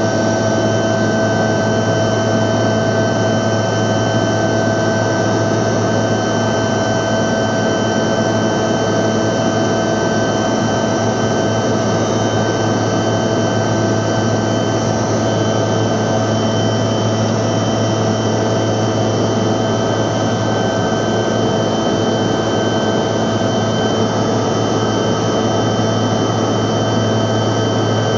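Steady engine and airflow noise inside the cabin of a Bombardier CRJ200 regional jet in flight, from its rear-mounted General Electric CF34 turbofans. Several unchanging whining tones sit over a low hum.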